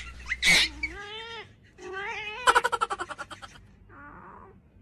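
Cat yowling in several drawn-out cries that rise and fall, one of them breaking into a fast rattling growl.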